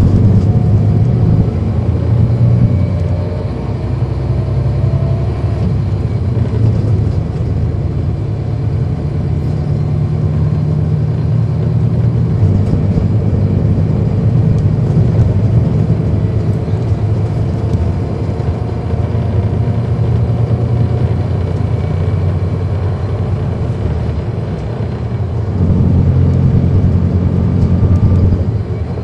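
Cummins ISL9 straight-six diesel engine of a NABI 40-SFW transit bus, heard from on board while the bus is under way. The engine note rises and falls as it drives, swelling about 26 seconds in and easing off near the end.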